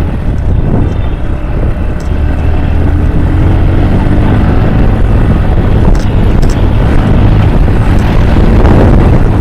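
Bajaj Pulsar NS125 motorcycle's single-cylinder engine running under way, its exhaust beat steady and loud, with wind on the microphone.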